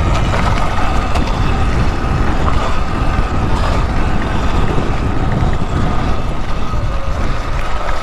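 Electric motorbike ridden on a dirt trail: a steady high motor whine under heavy wind buffeting on the microphone.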